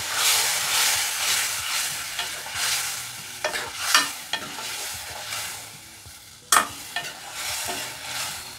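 Steel ladle stirring a watery tomato-and-sev gravy in a stainless steel kadai, the liquid swishing with each stroke about once a second. A few sharp clinks of the ladle against the pan, the loudest about six and a half seconds in.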